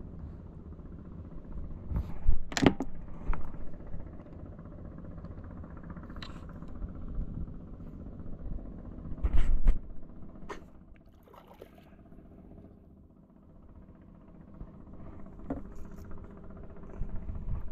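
Steady low hum, like a boat motor running, with several sharp knocks and handling noises from the boat and tackle while a hooked fish is played on a light spinning rod. The loudest knocks come about two and a half seconds in and about nine and a half seconds in.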